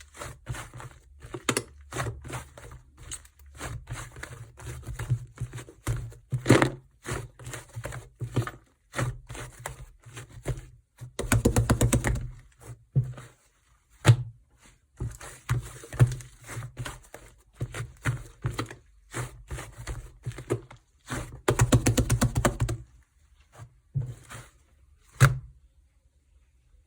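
Slime being played with by hand, giving an irregular run of sticky clicks and pops, with two stretches of rapid crackling about 11 and 22 seconds in.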